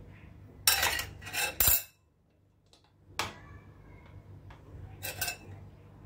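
Flour being sifted through a mesh sieve into a glass mixing bowl: short scraping, clinking clatters as the sieve and measuring glass knock against the bowl, a cluster of them in the first two seconds, a sharp knock a little after three seconds and another clatter near the end.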